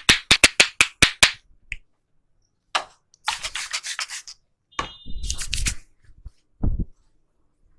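Massage strokes on a person's head: fast hand tapping, several strikes a second, that stops about a second in. Then vigorous rubbing of the oiled scalp and hair in two spells, and a single low thump near the end.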